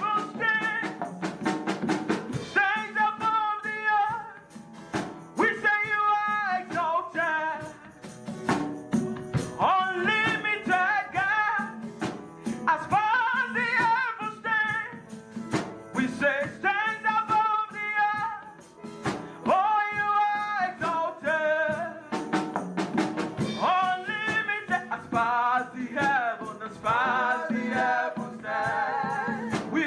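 Gospel worship song: a singer's phrases, wavering in pitch, over a band with a busy percussion beat.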